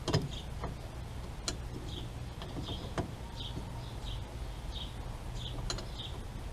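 A few sharp clicks and knocks of hand tools working on the axle, the loudest right at the start, with a short high chirp repeating about every two-thirds of a second throughout over a low steady hum.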